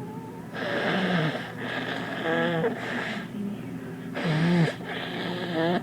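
A woman sneezing several times in close succession, harsh and wet sneezes from a head cold, with the loudest about four and a half seconds in.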